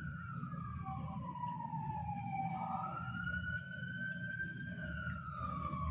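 A faint siren wailing slowly: its pitch glides down for a few seconds, rises again about halfway through, and starts falling once more near the end, over a low steady rumble.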